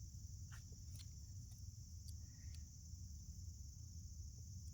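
Crickets chirring steadily and faintly over a low rumble, with a few faint clicks in the first second or two.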